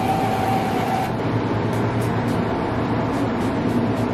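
Spray sunscreen being applied: a steady aerosol hiss for about the first second, then a run of short spray bursts, about two a second. A steady low rumble runs underneath.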